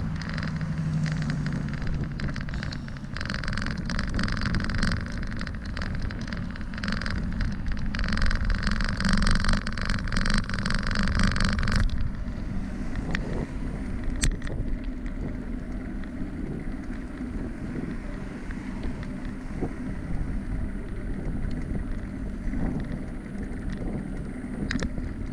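Bicycle ride noise: wind rumbling on the microphone with tyre and bike noise. A brighter rattling hiss through the first half cuts off abruptly about halfway, and a single sharp click follows soon after.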